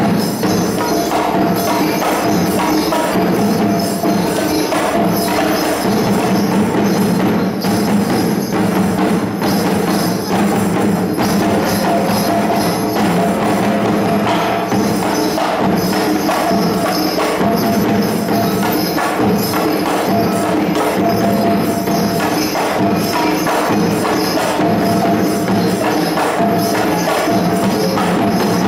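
Traditional East Nusa Tenggara percussion music played live: drums with ringing, metallic-sounding percussion in a steady, unbroken rhythm.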